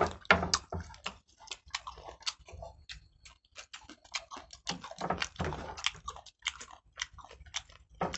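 Close-up eating noises of two people eating chicken pulao by hand: chewing and lip smacking, with many irregular short clicks and smacks.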